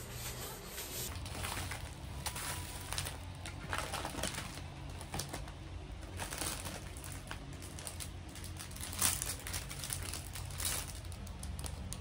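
Rustling with scattered small clicks and knocks as things are handled and sorted in a wicker basket, over a low steady hum.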